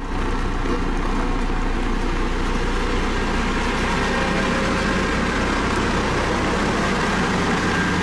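Dynapac CC522 tandem road roller's diesel engine running steadily as the roller travels over fresh asphalt, a constant low hum with no change in pitch.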